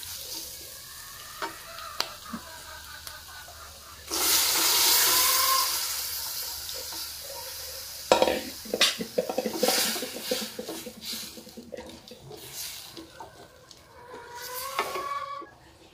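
Chopped onions sizzling and frying in oil in a steel pan, stirred with a wooden spatula. About four seconds in, a sudden loud rush of sizzling as the pressure-cooked chickpeas and their liquid go into the hot pan and slowly fade. From about eight seconds in, the wooden spatula stirs and clicks against the steel.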